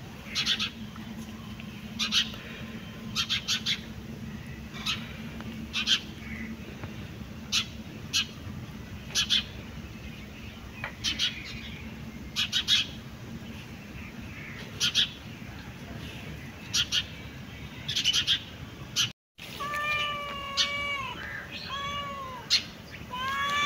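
Short high chirps, often in twos or threes, about once a second, with no meowing. Then after a sudden break near the end, a cat meows several times in quick succession, each meow rising and falling in pitch.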